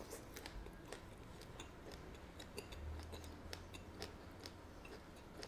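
Faint chewing of a mouthful of smoked sausage, mouth closed, with soft irregular clicks.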